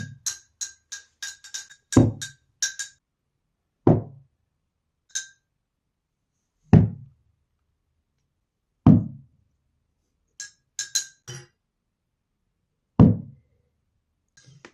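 Domestic rabbit thumping its hind feet on the floor: five heavy thumps, two to four seconds apart, a rabbit's alarm or warning signal. Between the thumps come runs of quick, light, clinking ticks.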